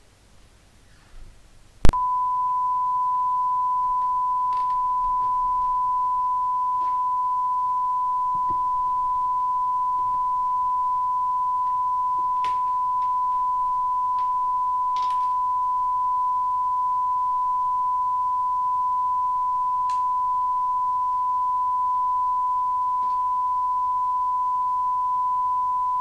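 A sharp click about two seconds in, then a steady, single-pitch broadcast test tone that holds at an even level: the reference tone sent while a live feed is off air.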